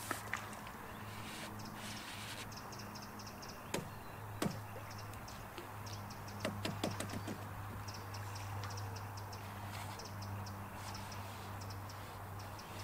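Bankside sounds: short runs of high, rapid chirping repeating on and off, a few sharp knocks, one near the middle and a quick cluster soon after, and a steady low hum underneath.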